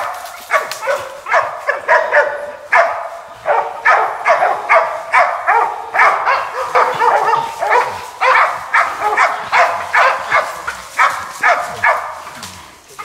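Hog dogs barking in rapid, repeated barks, about two or three a second, while they hold hogs at bay. The barking stops shortly before the end.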